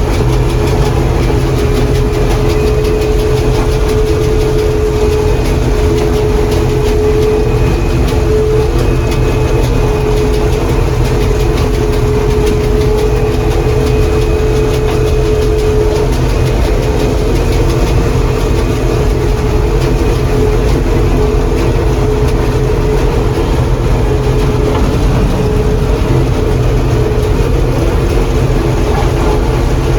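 John Deere 4400 combine running steadily while harvesting corn, heard from inside the cab: a constant engine drone with a steady whine from the machinery.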